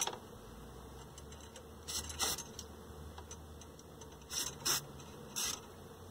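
Brief hissing spritzes of DeoxIT contact cleaner from an aerosol can onto a TV tuner's rotor contacts: five short bursts, two about two seconds in and three more between about four and five and a half seconds.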